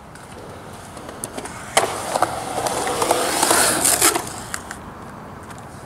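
Skateboard riding up a quarterpipe: a sharp clack of the board about two seconds in, then the wheels rolling, growing louder, and a second hard clack around four seconds in as the skater reaches the top of the ramp, after which the rolling fades.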